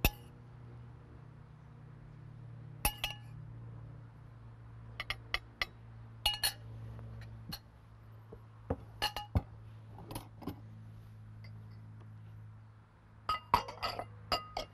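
A metal spoon clinking against ceramic bowls and dishes: irregular sharp clinks, single or in small groups, busiest near the end, over a steady low hum.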